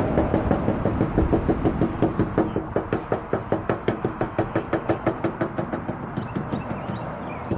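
A scruffy paintbrush being dabbed rapidly against a metal mailbox, giving a quick, even run of soft taps, about five or six a second, as wisteria blossoms are stippled on.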